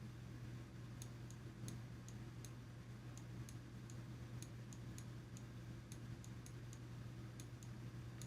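Faint computer mouse clicks, irregular, a few a second, over a low steady hum.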